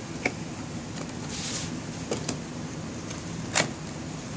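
Cardboard packaging being handled: a boxed model lifted out of a shipping carton with a short scraping rustle and a few light knocks and taps, the sharpest about three and a half seconds in, over a steady low hum.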